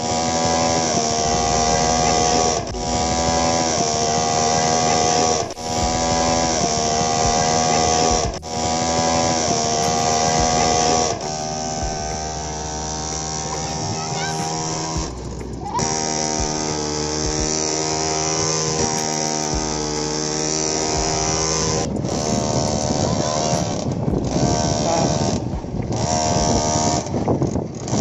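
Background song: a sung vocal line over accompaniment, in phrases of two to three seconds with short breaks between them.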